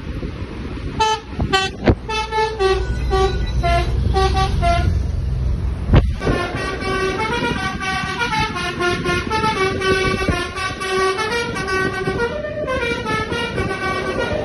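Telolet horns, Indonesian multi-tone vehicle air horns, playing stepping melodic tone sequences one after another, over a low engine rumble. A single sharp bang about six seconds in is the loudest moment.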